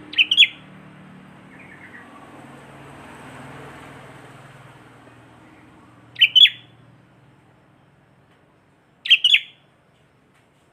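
A caged sooty-headed bulbul (kutilang) giving three short, sharp phrases of two or three quick notes each, a few seconds apart, in the style of prenjak (prinia) calls it has learned.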